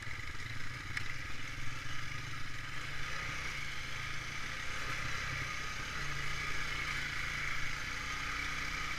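Honda ATV's single-cylinder engine running steadily while riding, with a constant low rumble and a steady hiss.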